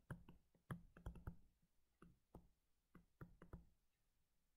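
Faint, irregular clicks and taps of a stylus pen on a tablet screen during handwriting, with near silence between them.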